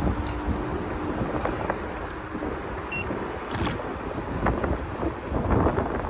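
Riding electric scooter: wind buffeting the microphone over a steady road rumble, with scattered knocks and rattles. A brief high beep sounds about three seconds in.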